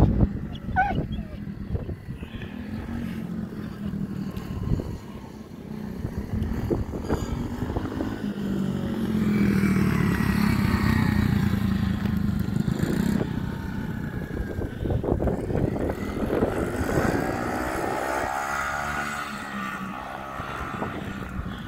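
Small kid's dirt bike engine running as the child rides around, growing loudest as the bike passes close about ten seconds in, then fading, with its pitch rising and falling as the throttle changes later on.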